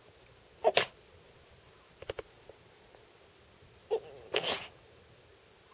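Pekingese dog making weird, monkey-like noises in short, sharp bursts: a quick double call about a second in, a few faint clicks near two seconds, and a longer call around four seconds, while begging for a pen.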